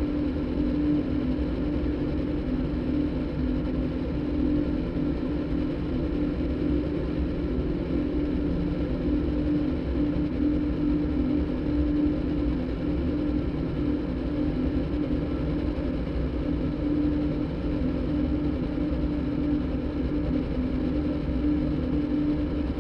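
Electronic soundtrack piece: a motorbike engine recording cross-synthesized with a đàn bầu (Vietnamese monochord) recording, making a steady engine-like drone held on one low pitch.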